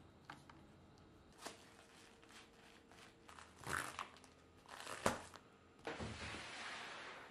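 Faint handling noises as a flexible plastic dust-extraction hose is fitted and hung: scattered clicks, knocks and rustles. Near the end comes a scraping hiss of about a second as a large sheet board slides across the machine bed.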